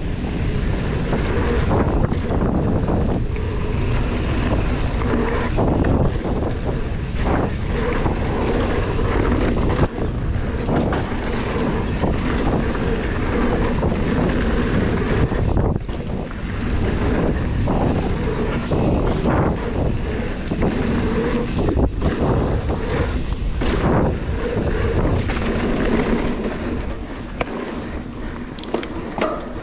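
Mountain bike riding fast down a dry dirt trail: knobby tyres rolling and crunching over hardpack, heavy wind buffeting the microphone, and occasional sharp knocks and rattles from the bike over bumps.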